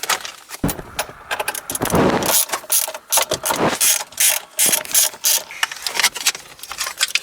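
Irregular metal clicks, clanks and rattles as the old, stuck gear-shifter assembly of a Toyota MR2 is forced and worked loose, with a knock about half a second in and a scraping noise around two seconds in.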